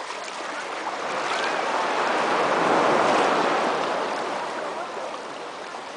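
Sea water washing and sloshing, a steady rushing that swells to a peak around the middle and then fades.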